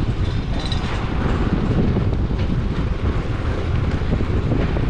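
Yamaha scooter riding along at steady speed: a continuous low rumble of the ride, with wind buffeting the microphone.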